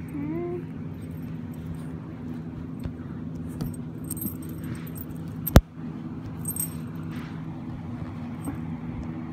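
Faint jingling of a puggle puppy's collar tags as she shifts about under a couch, over a steady low hum. One sharp click a little past halfway is the loudest sound.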